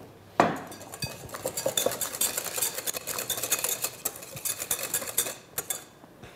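Wire balloon whisk beating thick homemade mayonnaise in a glass bowl: rapid, continuous clinking of the wires against the glass. It stops shortly before the end.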